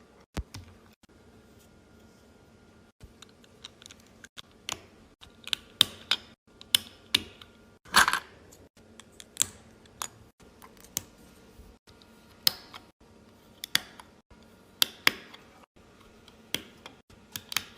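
Plastic Lego bricks clicking and tapping as they are handled and snapped together, in irregular small clicks with a short rattle of pieces about eight seconds in.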